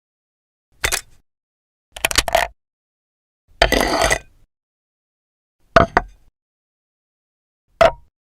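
Five short sound effects, one every second or two, with dead silence between them. The third, about three and a half seconds in, is the longest and loudest.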